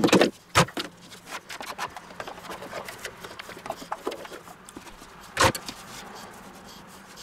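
Pizza dough being handled on a wooden cutting board dusted with semolina: light rubbing and small ticks, with sharp knocks at the very start, just over half a second in, and about five and a half seconds in.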